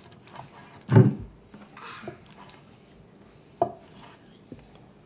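Knife chopping through cooked elk tongue onto a wooden cutting board: a few separate knocks, the loudest about a second in.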